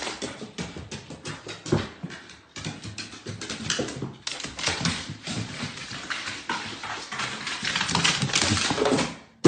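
A dog's claws and paws clicking and knocking on wooden stairs as it goes down them, a quick irregular run of footfalls.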